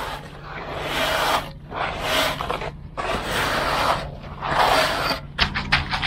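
A metal screed straightedge scraping back and forth across stiff, freshly poured concrete in about four strokes of roughly a second each, with sharp clicks and knocks near the end.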